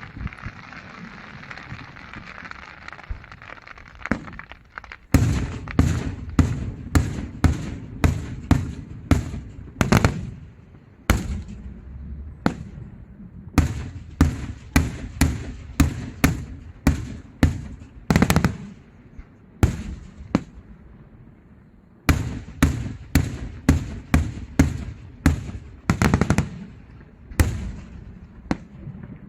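Daytime fireworks display: a fading crackling hiss, then a long run of sharp bangs about two a second, broken by two short lulls.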